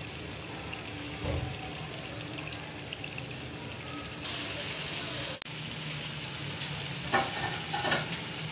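Spice-and-yogurt-marinated chicken pieces sizzling in oil in a kadhai over a medium-to-low flame, a steady frying hiss that grows louder about four seconds in. A soft low knock about a second in, and a brief dropout just past halfway.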